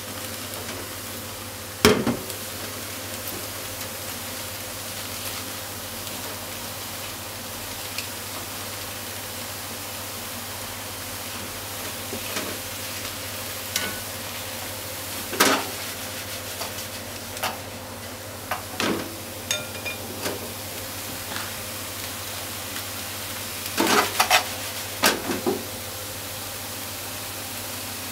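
Atsuage (thick deep-fried tofu) and chopped leek sizzling steadily as they are stir-fried in a frying pan, with scattered clicks and knocks of utensils against the pan. The sharpest knock comes about two seconds in, and a quick cluster of clicks comes near the end.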